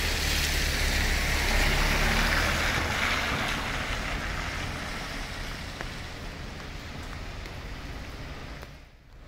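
A car driving past on a wet street, its tyres hissing through the water over a low engine rumble, loudest in the first few seconds and then fading into the steady hiss of rain.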